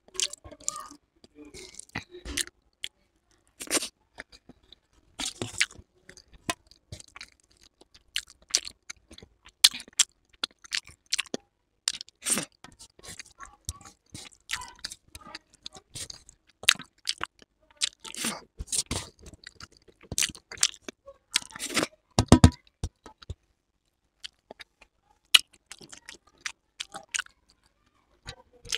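Close-miked chewing and lip smacking as rice is eaten by hand, with fingers scraping on a steel plate between mouthfuls; a louder, deeper knock comes about three-quarters of the way through.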